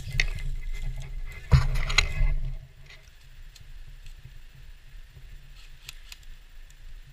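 Movement noise from a player's gear: rustling, scraping and a few sharp clicks, with rumble on the microphone. It is louder for the first two and a half seconds, with the sharpest click about a second and a half in, then drops to faint scattered ticks.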